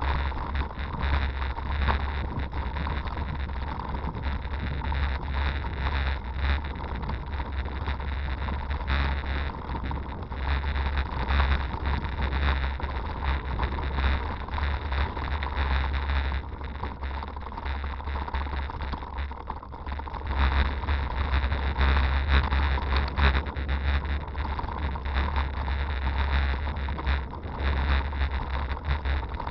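Ride noise from a Scott Sportster hybrid bicycle on a rough, rutted dirt towpath: wind rumbling on the bike camera's microphone, with irregular rattles and knocks as the bike goes over the bumps. A faint steady whine runs through it.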